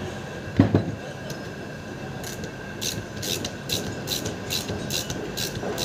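Socket ratchet turning a bolt on a starter motor, its pawl clicking in short repeated bursts about two or three times a second from about two seconds in. A single thump just under a second in.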